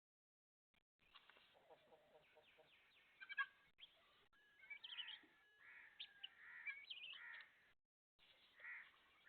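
Chickens calling: a scatter of short chirping and clucking calls, growing busier about halfway through, with brief drop-outs to silence.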